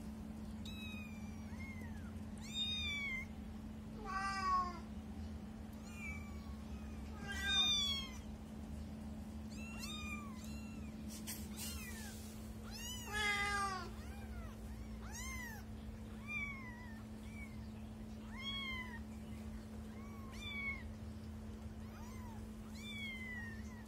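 Young kittens mewing: short, high-pitched mews that rise and fall, repeated about once a second, over a faint steady hum.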